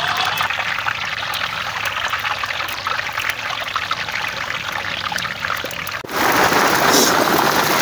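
Masala-coated thirukai (stingray) pieces sizzling and crackling as they are deep-fried in hot oil in a large iron kadai. About six seconds in the sound jumps louder, with a full pan of fish frying hard.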